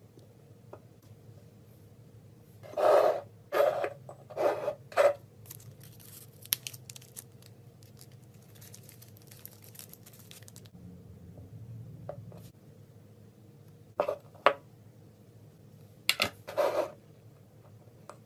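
Close handling noises: four sharp snip- or tear-like sounds about a second apart, then several seconds of fine crackling. Two more quick snips follow later and another pair near the end.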